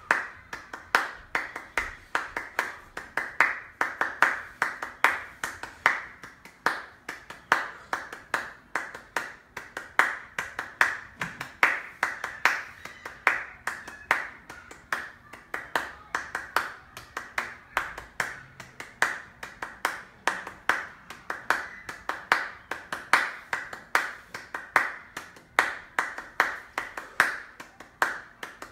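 Hand clapping in a steady, even rhythm of about three claps a second, keeping the beat for dance practice.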